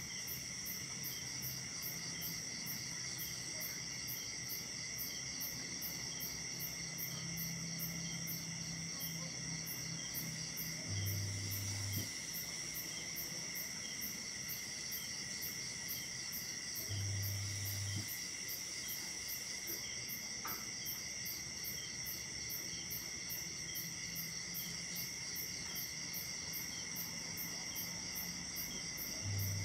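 Night insect chorus of crickets trilling steadily in several high pitches, with a very high chirp pulsing about three times a second. Three times a short low hum lasting about a second rises over it.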